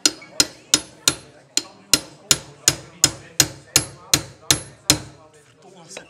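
Hammer blows on metal, evenly paced at about three a second with a slight metallic ring, stopping about five seconds in: a part is being knocked loose while a Honda Dax four-stroke minibike engine is taken apart.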